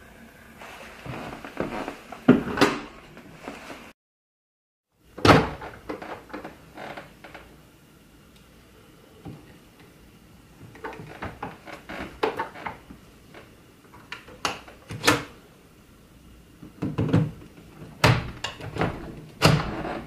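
Plastic clicks, snaps and clunks from a Kenmore canister vacuum's parts being handled with the motor off: attachment tools worked in the onboard storage, then the wand and motorized powerhead being detached and released. The sharp snaps come scattered, loudest a little after the start and in a cluster near the end.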